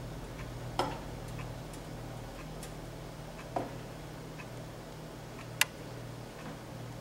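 A clock ticking about once a second over a steady low hum, with three sharper clinks of the saucepan against the glass bowls as the cream sauce is poured; the last clink, near the end, is the loudest.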